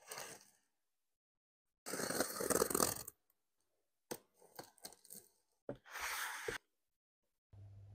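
Utility knife slicing through packing tape on a cardboard box, heard as short bursts of tearing and scraping, the longest about two seconds in, with a few sharp clicks and a second scrape of cardboard and foam packing a little later. A low steady hum comes in near the end.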